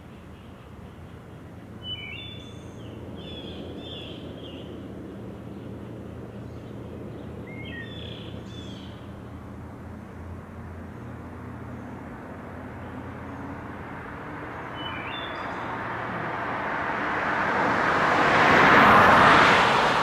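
A car approaches and passes close by: its tyre and engine noise swells to a peak about a second before the end, then begins to fade. Before that, birds chirp a few times over a faint, steady low hum.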